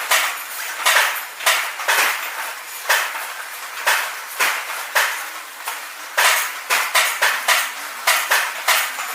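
Robotic welding cell at work: a quick, irregular series of sharp crackling, metallic bursts, about two or three a second, over a steady hiss.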